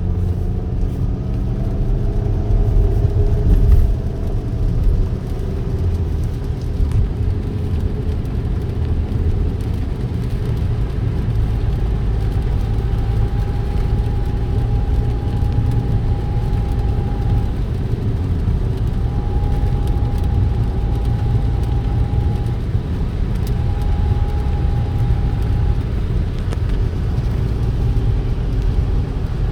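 A car driving, with a steady low rumble of engine and road noise and the engine pitch shifting in the first few seconds. From about halfway through, a steady mid-pitched tone comes and goes in stretches of a few seconds.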